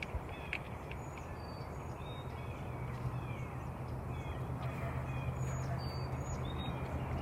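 Wild birds calling at dawn: many short chirps and whistled notes, some gliding down in pitch, over a low steady hum that grows louder toward the end.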